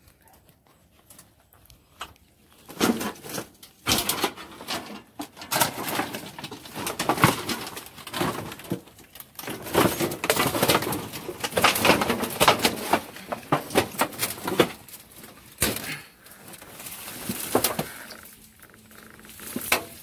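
Repeated clattering and rustling as a heap of junked white plastic, boards and corrugated metal sheets is pulled apart by hand. It starts about two seconds in and is busiest until near the end.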